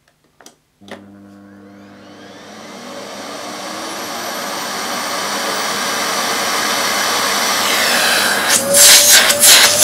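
A click of the power button, then a Hoover Sensory TS2165 2200-watt bagged cylinder vacuum cleaner starting on its soft-start: the motor whine rises steadily in pitch and loudness over about seven seconds. Near the end the hose end is blocked by hand, giving loud rushes of suction and a whistling tone.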